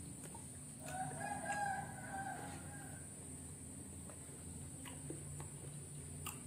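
A rooster crows once, starting about a second in and lasting about two seconds. A few faint clicks of clam shells being handled.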